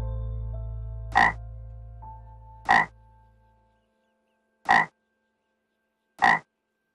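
A frog croaking four times in short, sharp calls about a second and a half apart. A low steady hum under the first calls fades out by about halfway through.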